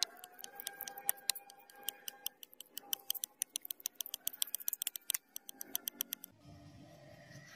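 Steel knife blade rubbed over wet waterproof sandpaper: a fast, irregular run of sharp ticks and scratches that stops about five seconds in. This is the wet-sanding of the blade. It is followed by the short rustle of a sandpaper sheet being handled.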